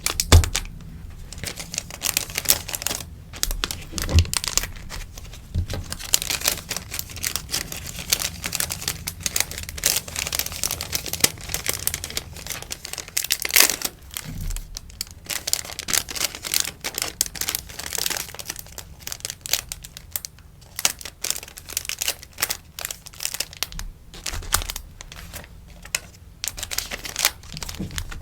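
Rustling and crinkling of sticker packaging being handled, irregular crackles with a few soft taps and knocks.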